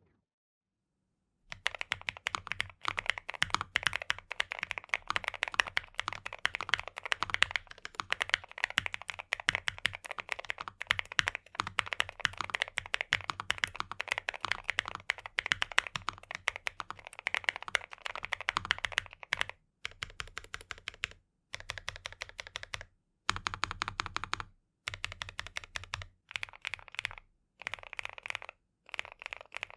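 Typing on a NuPhy Nos75 low-profile mechanical keyboard with factory-lubed Gateron NuPhy N1 Nano switches, the PCB gasket-mounted on silicone socks. There are fast, continuous key clicks for about eighteen seconds. After that the typing comes in shorter bursts separated by brief pauses.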